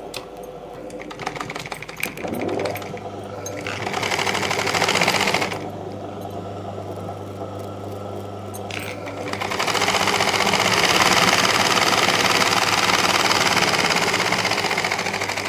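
Domestic sewing machine running a line of topstitching through layered fabric: a short run of fast, even stitching about four seconds in, a pause, then a longer run from about nine seconds on, with a steady low hum underneath throughout the stretch.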